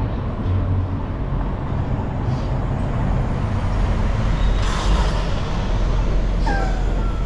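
City street traffic heard from a moving bicycle: a steady low rumble of vehicles, a brief hiss about two-thirds of the way through, and a short squeal that falls in pitch near the end.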